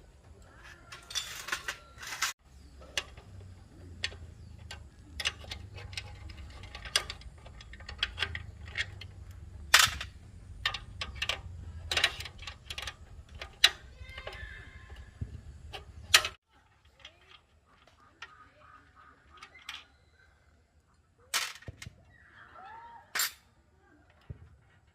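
Hand tools knocking and clicking on metal machine parts: irregular sharp strikes over a low rumble that cuts off about 16 seconds in, after which the strikes come fewer and softer.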